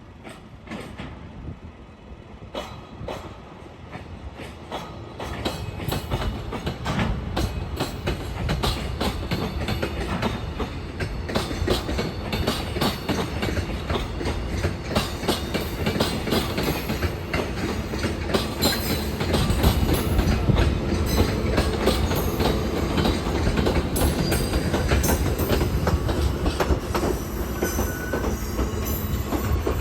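Freight wagons being shunted by an HD300 hybrid shunting locomotive, rolling past with a low rumble and dense wheel clicks over rail joints, growing louder about five seconds in and staying loud.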